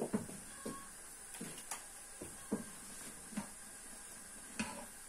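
Diced eggplant being tipped from a metal bowl into a large pot, with about eight scattered light knocks and clatters of the bowl and the falling cubes against the pot.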